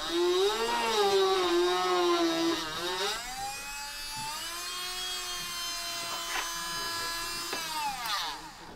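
Small cordless rotary tool (mini drill) drilling into a cork trackbed and baseboard, running with a high whine. Its pitch wavers for the first few seconds as the bit is pressed in, then holds steadier and lower, and it winds down near the end.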